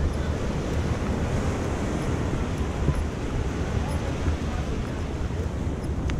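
Sea surf breaking and washing up the beach, with wind buffeting the microphone in a low, uneven rumble.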